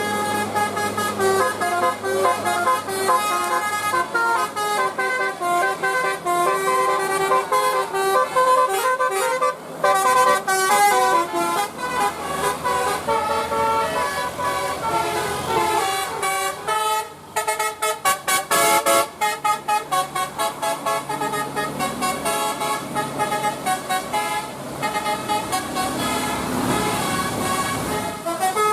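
Telolet musical bus horn playing a quick melody of stepping tones, note after note, over the steady hiss of heavy rain.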